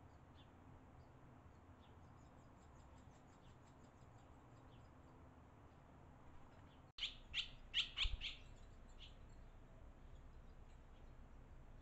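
Barn swallows chirping at the nest: a faint quick series of high chirps, then about seven seconds in a burst of five or six loud, sharp chirps.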